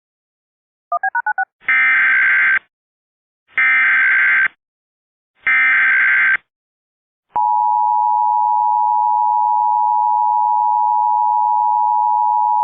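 Emergency Alert System broadcast opening. Four quick beeps come first, then three SAME header data bursts, each a harsh screech of just under a second, about a second apart. From about seven seconds in, the EAS two-tone attention signal sounds as one steady tone.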